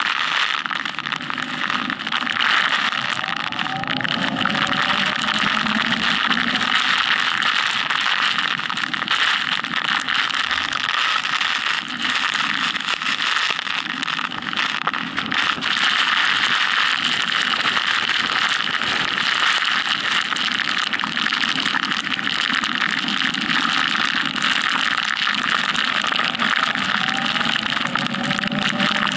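Motorcycle at highway speed in a heavy rainstorm: steady rush of wind and rain on the camera, with the engine running underneath. The engine's pitch rises briefly twice, a few seconds in and near the end.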